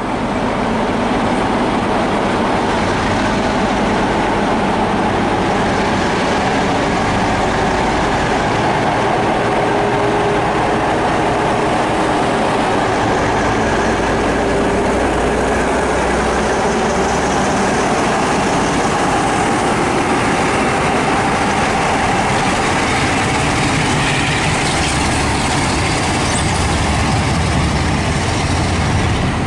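Class 47 diesel-electric locomotive's Sulzer twelve-cylinder engine running steadily as it passes slowly at the head of a train of coaches, a loud constant drone with the rumble of the train.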